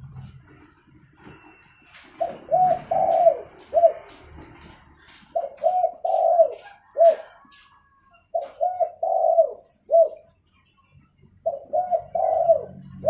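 Spotted dove cooing: four repeated song phrases about three seconds apart, each two short coos, a longer coo that falls away at its end, then one more short coo after a brief pause.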